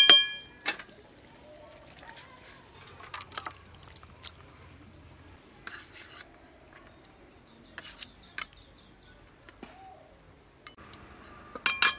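Flat metal spatula clinking against a steel cooking pan with a short ringing clang right at the start and again near the end, with faint scrapes and taps between as curry is scooped onto a steel plate.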